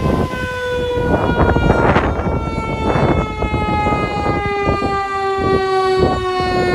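Fire apparatus siren sounding a long tone that slowly falls in pitch, over the rumbling noise of the approaching fire trucks.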